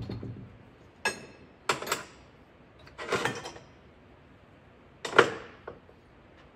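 Metal knocks and clanks of a lathe chuck being worked loose and taken off the spindle nose: single knocks, then a short rattle, and the loudest clank about five seconds in as the chuck comes away.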